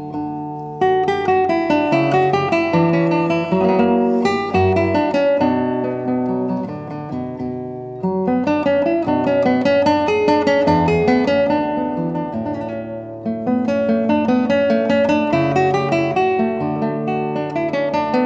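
Solo classical guitar music: fingerpicked arpeggios of plucked notes that ring and fade, with a new phrase starting about a second in, again about eight seconds in and about thirteen seconds in.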